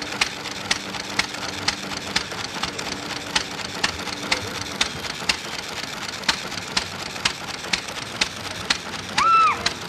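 Antique hit-and-miss stationary engine running, with a steady clack about twice a second. A low hum stops about halfway through, and a short high-pitched call, the loudest sound, comes near the end.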